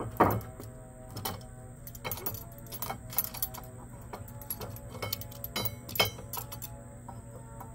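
Metal clanks and clicks as a rusty steel lawn mower blade is laid on a wooden rail and a locking C-clamp is fitted and squeezed onto it, with one loud clank right at the start and another sharp click about six seconds in.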